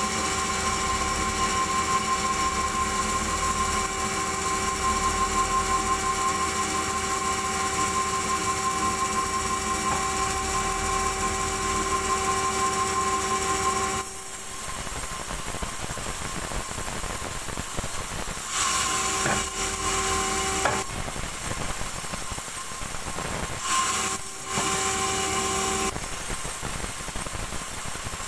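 A large vertical band saw runs and rips a log lengthwise into slabs. A steady machine whine holds for about the first half, then gives way to a rougher sawing noise, with the whine coming back briefly twice.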